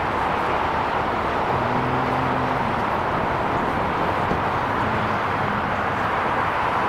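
Boeing 787 airliner's jet engines running at taxi thrust, a steady rush of jet noise close by. A faint low hum comes in briefly about one and a half seconds in.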